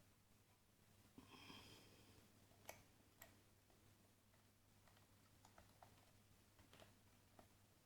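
Faint clicks and light scraping of a lock pick working the pins of a CES euro cylinder lock under tension: a brief scrape early on, two sharper clicks about three seconds in, then scattered small ticks.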